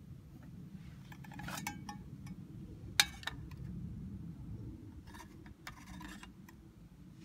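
Aluminium mess tin being set down on a camp gas burner and its aluminium windscreen: a few light metallic clinks and knocks, the sharpest about three seconds in, over a low steady rumble.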